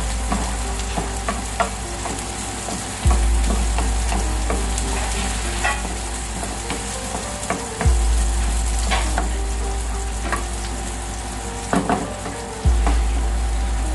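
Food frying in a pan, sizzling, with the clicks of a utensil stirring against the pan while it browns. Under it a deep low tone comes in sharply about every five seconds and fades away.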